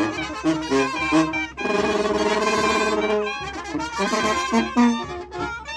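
Mexican brass band (banda de viento) playing a lively tune. The horns run quick notes, hold one long wavering chord for about a second and a half, then take up the quick melody again.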